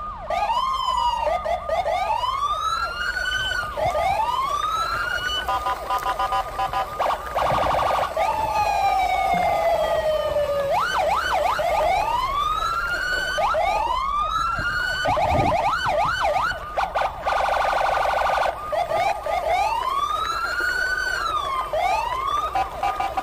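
Electronic siren sounds: repeated rising and falling wails over a steady high tone. Twice there are stretches of rapid warbling pulses, and once a long falling tone.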